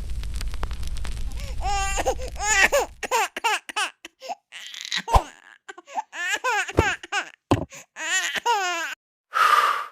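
Low rumbling noise for about the first three seconds, then high-pitched laughter in short, breathy bursts with rising and falling pitch. A brief rush of noise comes near the end.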